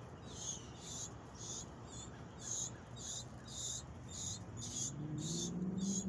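Insect chirping in a steady rhythm, about two short high-pitched pulses a second. A low drawn-out sound enters near the end.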